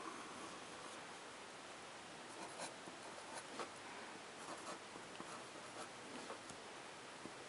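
Fine-tipped pen scratching across paper in short, irregular strokes while a face is sketched, faint over a steady background hiss.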